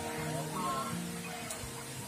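Background music with a held, moving melody.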